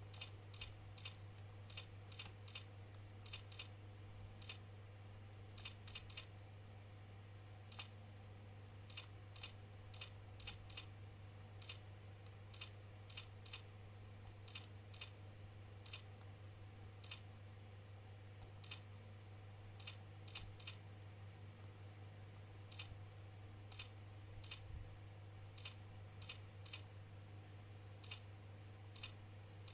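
Slow, irregular clicks of computer keys, one or two a second with occasional quick runs of two or three, over a steady low hum.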